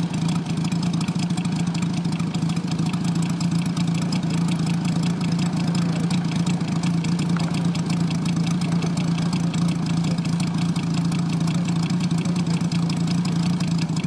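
Moki 250 five-cylinder radial engine in a giant-scale RC Corsair idling steadily on the ground, with an even low drone.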